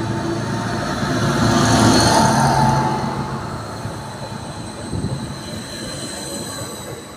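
Class 755 Stadler FLIRT bi-mode multiple unit running past along the platform. It grows louder to a peak about two seconds in, then fades as the last car goes by, with a steady high whine over the running noise.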